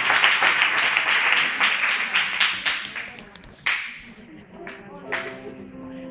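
Congregation applauding, the clapping dying away about halfway through with a few last single claps. Near the end a keyboard starts playing held chords.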